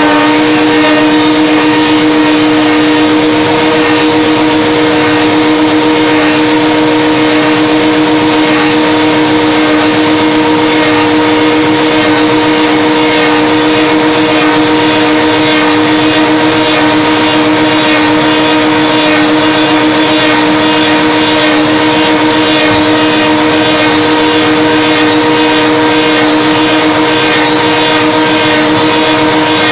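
Bacci automatic copy lathe turning hickory wheel-spoke blanks: motors and cutter heads running with a steady hum of several fixed tones over the hiss of wood being cut.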